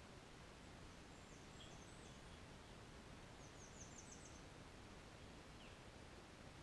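Faint, high-pitched songbird calls over a steady background hiss. A few thin notes come about two seconds in, then a quick run of about six high notes just past the middle.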